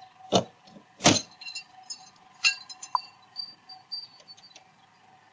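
A car window being smashed: two hard blows within the first second or so, then a scatter of clinks and tinkling glass, with a third smaller strike about two and a half seconds in.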